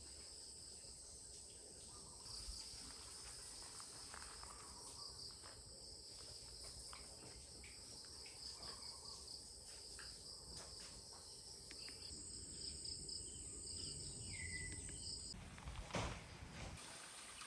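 Chorus of insects such as crickets, a steady high-pitched trilling with a pulsing chirp under it. A second, higher steady buzz joins about two-thirds of the way through and stops about three seconds later, and a single knock sounds near the end.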